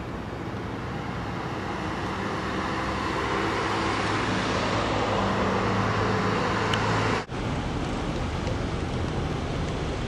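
Road traffic with a vehicle engine humming and growing louder; it breaks off suddenly about seven seconds in, leaving steady traffic noise.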